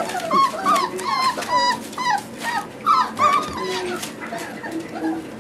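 Four-week-old Boerboel puppies whining and yipping, a quick run of short high calls that rise and fall in pitch, one after another.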